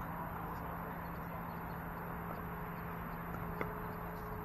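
Steady low hum and hiss, with a single sharp pop of a pickleball paddle striking the plastic ball about three and a half seconds in.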